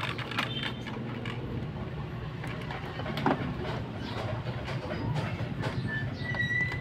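Clicks, knocks and scraping from taking out the screws and handling the plastic housing of an Epson L3150 printer, over a low steady hum, with a short squeak near the end.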